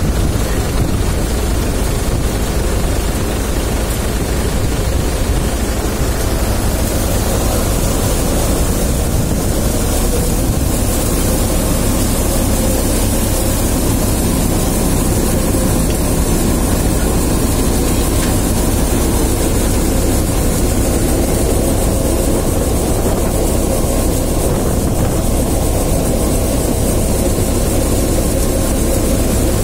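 Cumin thresher running steadily while threshing cumin seed: a loud, even mechanical drone and rush with a faint steady hum, unchanging throughout.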